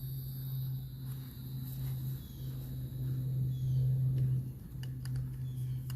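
A steady low hum with a few faint clicks and light knocks over it.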